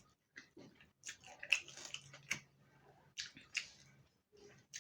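Close-up chewing and mouth sounds of someone eating chicken curry with rice: a series of short wet smacks and clicks.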